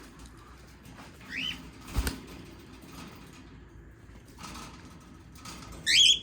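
Cockatiels calling: a short rising chirp about a second in and a louder rising call with ringing overtones near the end. About two seconds in comes a single brief thump.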